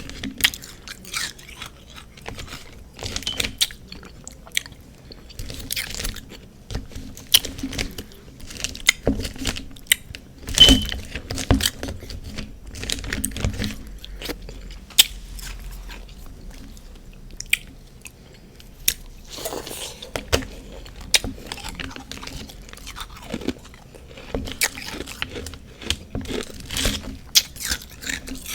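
A person biting and chewing refrozen freezer frost close to the microphone: a dense, irregular run of sharp crunches and crackles.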